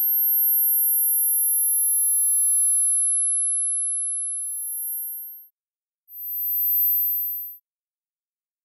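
High-pitched pure sine tones between 10 and 13 kHz, played as a tinnitus neuromodulation sequence. Two steady tones at slightly different pitches overlap at first; the upper one stops about three seconds in and another briefly joins, then all cut off about five and a half seconds in, followed by a single short tone of about a second and a half and then nothing.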